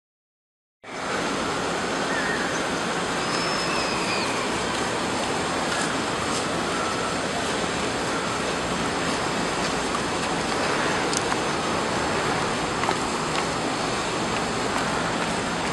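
About a second in, after brief silence, a steady rushing outdoor noise sets in: wind and street noise on a handheld microphone. A few faint high chirps sound through it.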